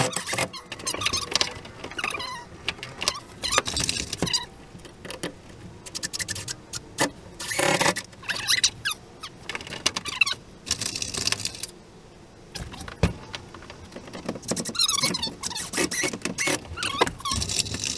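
Irregular knocks and clatter with short squeaks from wood pieces and tools being handled during hands-on repair work.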